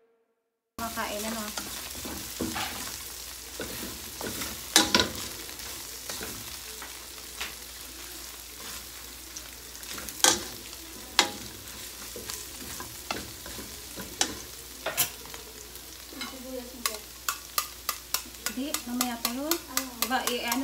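Minced garlic and ginger sizzling in hot oil in a wok, with a metal ladle scraping and clicking against the pan as it is stirred. The clicks come much more often over the last few seconds.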